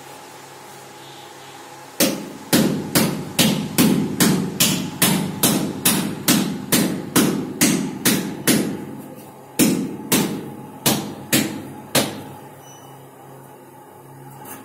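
Rapid knocks on a ceramic wall tile as it is tapped to bed it into fresh mortar: a quick, even run of about nineteen strikes at roughly three a second, then a short pause and six more, slower knocks.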